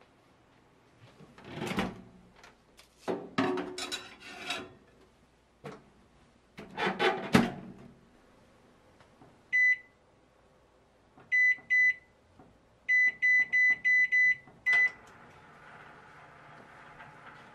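Paper rustling and a few knocks as croissants on baking paper are handled and put into a ZEPEAL microwave oven, then the oven's keypad beeps as it is set: one beep, two, then five quick beeps. After a final beep and click it starts running with a steady hum, its heater baking the croissants.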